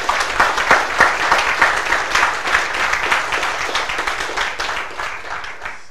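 Audience applauding: many people clapping at once, slightly fading toward the end.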